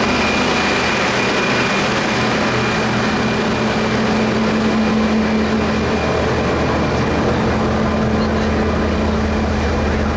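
A diesel engine idling with a steady low hum, under the chatter of a crowd.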